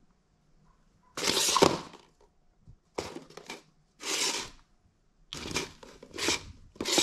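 A cat pawing at a plastic ball-track toy, which gives five short, noisy bursts of rolling and scraping as the ball and toy are knocked about.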